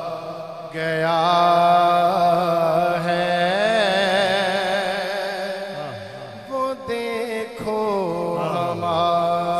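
A man singing a naat (Urdu devotional poem) without words being picked out, holding long, wavering melismatic notes over a steady low drone.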